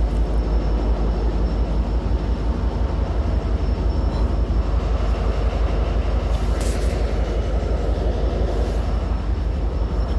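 Metra commuter train running, a steady loud rumble, with a brief hiss about two-thirds of the way through.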